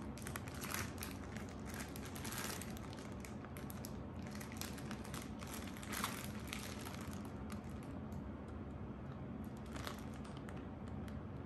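Thin plastic bag crinkling and rustling as it is handled, in quick crackly bursts that thin out after about seven seconds, with one more near the end. A low steady hum runs underneath.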